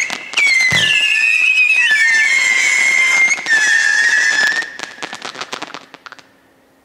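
Fantazia 'Whistling Willy' 64-shot firework barrage: a launch thump about a second in, then loud whistles, several tones at once that step down in pitch. Near the end comes a quick rattle of small pops, and then it stops.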